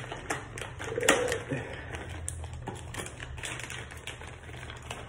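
Plastic packaging crinkling and rustling in the hands as a small bag of parts is opened and handled, in irregular clicks and crackles over a low steady hum.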